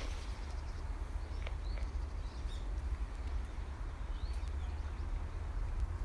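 A low rumble of wind on the microphone, with a few faint, short bird chirps now and then.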